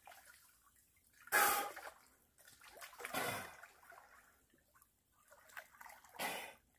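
Water splashing and sloshing in three short bursts around a snorkeler moving through shallow creek water, with quiet between them.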